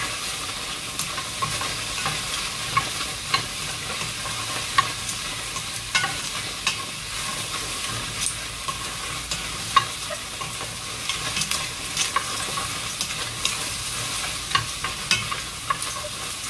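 Sliced onions sizzling in a hot, dry stainless steel pot with no oil. A wooden spoon stirs them, scraping against the pot, with frequent sharp ticks and crackles over a steady hiss.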